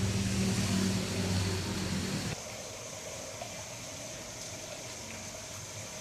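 An engine running steadily with a low hum, which cuts off abruptly a little over two seconds in, leaving a quieter steady hiss.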